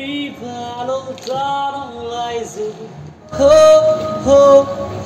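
A gondolier singing unaccompanied: one voice holding long notes that slide from pitch to pitch, louder from about three seconds in.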